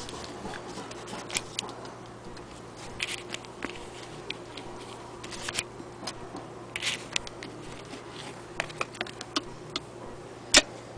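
Scattered, irregular clicks and taps of hands handling an antique Singer 66K hand-crank sewing machine and laying fabric on its bed, with one sharp click near the end.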